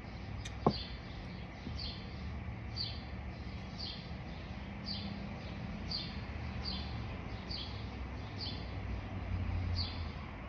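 A bird repeating one short chirp over and over, about three chirps every two seconds, over a low steady rumble. A single sharp knock about half a second in.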